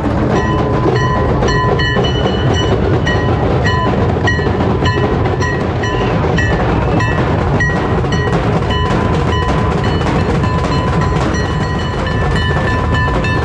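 Loud festival drumming with a steady beat, and a high held tone sounding over it.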